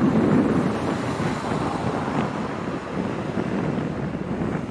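Wind buffeting the microphone: a steady low rushing noise in gusts, easing a little toward the end.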